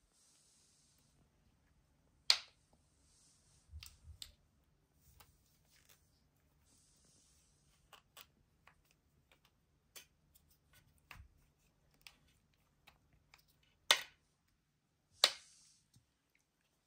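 A kitten playing with a toy on a cord on a wooden floor: irregular sharp clicks and taps, three of them loud (about two seconds in and twice near the end), with short soft rustles between.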